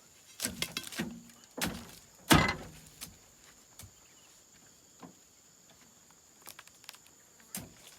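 A run of sharp knocks and thuds, the loudest about two seconds in with a short ringing tail, followed by a few faint clicks.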